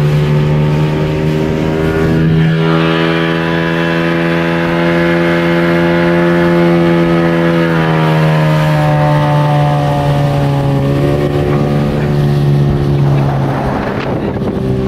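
Yamaha 25 horsepower outboard motor running at speed under load, steady with its pitch dipping slightly a few times. Near the end the engine note weakens and a rush of water spray rises as the boat heels over.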